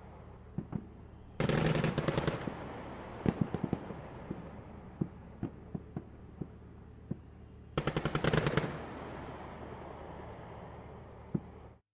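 Battle sound effects of gunfire: two rapid bursts of machine-gun fire, about a second each, with scattered single shots between them over a steady low rumble. The sound cuts off suddenly near the end.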